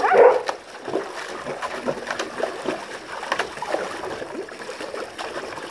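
Stream of water from a garden hose pouring into a metal tub with a dog standing in it: steady trickling and splashing with irregular sloshing.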